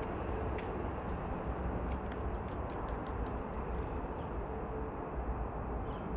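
Steady low outdoor background rumble with faint scattered clicks. From about four seconds in, a small bird gives three short, thin, high-pitched calls.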